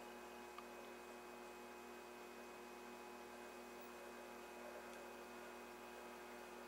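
Faint, steady mains hum from a freshly powered tube TV setup on a variable isolation transformer while the set warms up, before the picture tube lights.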